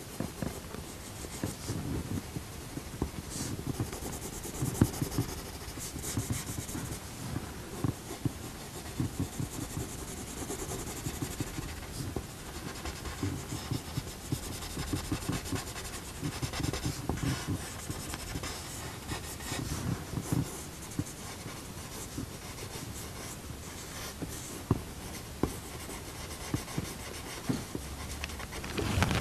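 Coloured pencil scratching on drawing paper in many short, quick strokes, coming in runs with brief pauses between them.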